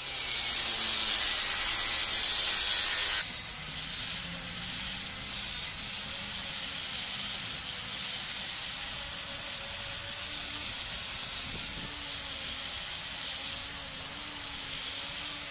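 Angle grinder with a twisted-wire steel cup brush scouring rust off a square steel tube: a steady, harsh hiss of wire on metal over the faint whine of the motor. The hiss eases slightly about three seconds in.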